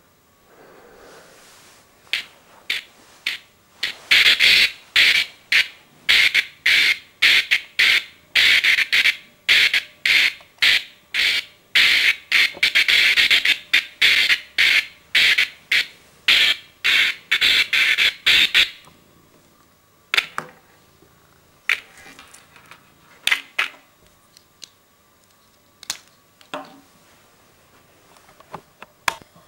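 Small speaker driven by a hacked child's voice-changer circuit with a switched 555 oscillator stage, giving out a fast run of short, harsh electronic squawks about two a second. The squawks stop about two-thirds of the way through, and only a few scattered blips follow.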